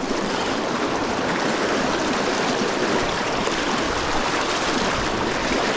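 Fast, swollen river current rushing past close by, a steady, even rush of water.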